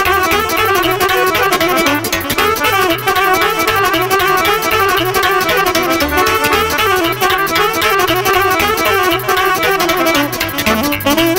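Instrumental Romanian folk dance music from a live band, a fast melody over a steady, driving beat.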